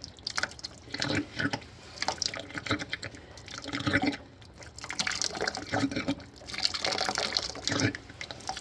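Dirty water running out of an old Burnham steam boiler's opened drain valve and splashing in uneven surges. This is the boiler being flushed of sediment-laden water.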